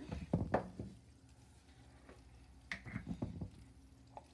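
Handling noises: a few short knocks and rustles in two bursts as baking soda is brought over a glass beaker of vinegar and tipped in, the first burst the loudest.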